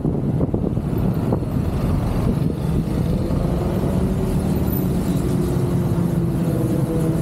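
Motorcycle engine running steadily while riding, with a dense low rumble of road and wind noise; a steady engine tone grows clearer about halfway through.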